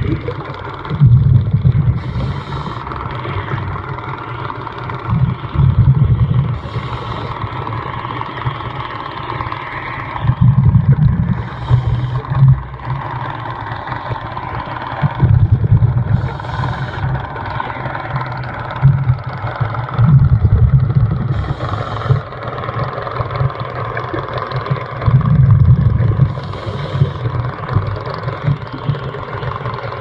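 Scuba diver breathing through a regulator underwater: a low bubbling rumble of exhaled bubbles about every five seconds, alternating with the hiss of each inhalation, over a steady underwater drone.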